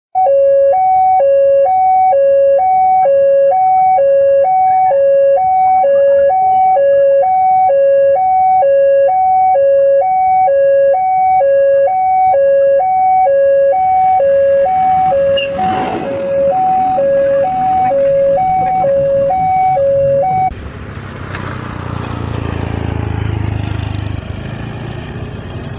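Electronic two-tone warning alarm of a railway level crossing, alternating between a low and a higher note about once a second, then cutting off suddenly about twenty seconds in. A low rumble follows for the last few seconds.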